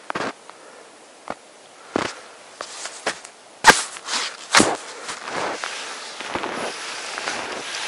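Wide wooden hunting skis creaking and crunching in cold snow with each stride: a series of sharp crunches, the loudest about three and a half and four and a half seconds in, over a faint steady swishing.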